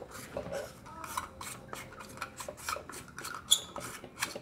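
LED bulb's threaded metal base being twisted in a plastic screw-in lamp socket: a run of short, uneven scraping strokes, with one sharp click about three and a half seconds in.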